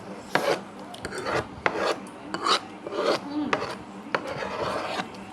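Close-up eating sounds: irregular crunching and chewing, about eight separate noisy bursts.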